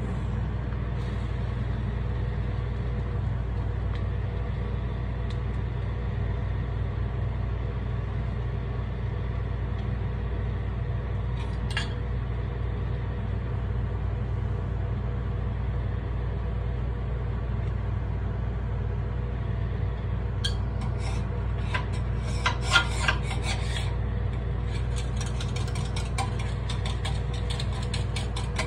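Steady low hum of the kitchen range hood over a gas takoyaki grill. From about 20 seconds in, metal takoyaki picks click and scrape in the pan's cups as the balls are turned, thickest a couple of seconds later, then a run of quick light ticking near the end.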